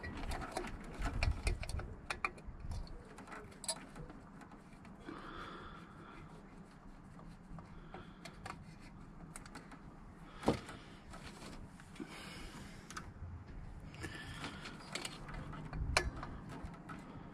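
Scattered small clicks and metallic taps as a screwdriver and fingers work the choke linkage on a Nissan Micra K10's carburettor, with one sharper click about ten seconds in.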